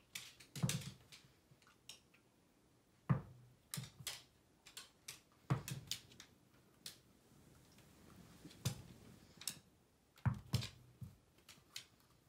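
A Shiba Inu playing with a tennis ball on a wooden floor: irregular light taps and clicks of claws, paws and the ball, a dozen or so spread unevenly.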